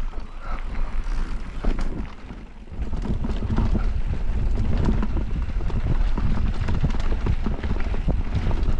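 Mountain bike riding down a dirt bike-park trail: wind buffeting the microphone, with tyres and frame rattling and knocking over rough ground. The rumble dips briefly, then comes back louder and stays loud from about three seconds in.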